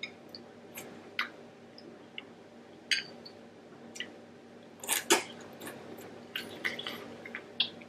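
Close-up eating sounds: wet smacking and squishing as sauce-dipped king crab meat is chewed, heard as scattered sharp clicks that come thickest about five seconds in and again near the end, over a faint steady hum.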